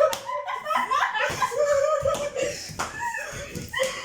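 Sharp slaps of a shoe striking a person, a punishment blow in a game, mixed with laughter.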